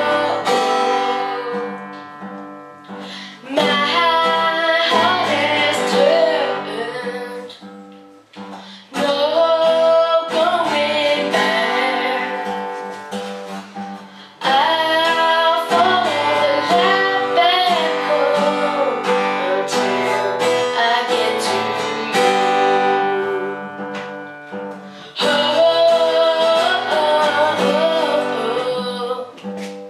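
A child singing while strumming chords on a Takamine acoustic guitar, the sung phrases broken by short pauses every few seconds while the guitar rings on.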